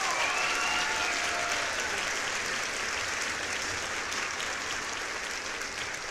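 Crowd applause, many hands clapping, with a few pitched cheers in the first second; it slowly fades.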